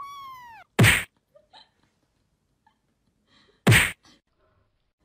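A cat gives one short meow that falls in pitch, followed by two loud, sharp slap-like hits about three seconds apart as the adult cat swats at the kitten.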